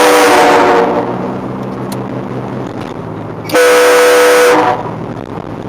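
Two blasts of a multi-chime train-style air horn, a chord of several steady tones: the first ends about a second in, the second sounds briefly about three and a half seconds in. A lower steady drone runs between them.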